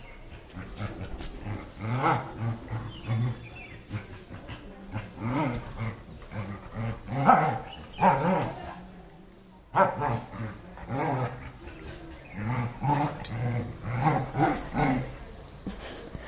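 A Doberman puppy and an older dog play-fighting, with short growls and barks repeating over and over and a brief pause about nine seconds in.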